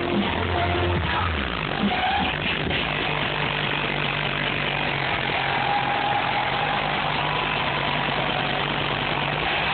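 Live electronic dance music played loud over a concert sound system and picked up on a phone. About a second and a half in, a pounding bass beat gives way to a long, steady low bass drone that holds until near the end.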